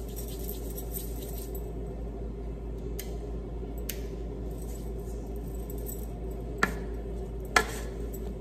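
Salt shaken from a shaker over cut potatoes in a bowl, a faint gritty hiss at first. Then four sharp clicks and taps as the shaker is handled, the loudest near the end, over a steady low hum.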